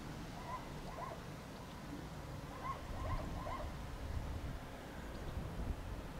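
A small bird chirping, a few short high calls in two clusters, around the first second and again near three seconds in, over a low steady rumble of background noise.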